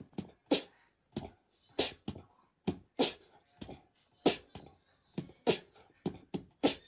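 A rhythmic series of short, sharp percussive hits, about two to three a second, with silence between them.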